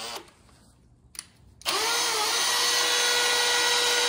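Cordless drill starting up about one and a half seconds in and then running steadily at speed, turning a 7/8-inch line boring bar, with a steady motor whine.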